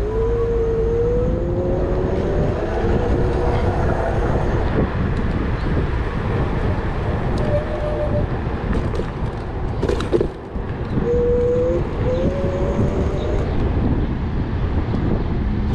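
Wind on the microphone and road rumble from an Emove Cruiser electric scooter riding at low speed. The motor whine rises in pitch as the scooter speeds up, once at the start and again later, and there is one sharp knock about ten seconds in.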